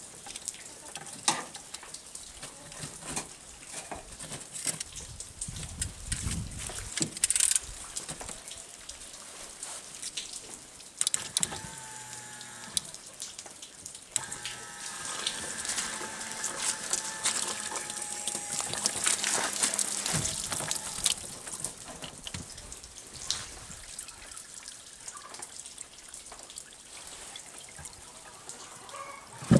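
Liquid trickling and dripping, with scattered sharp clicks and small knocks.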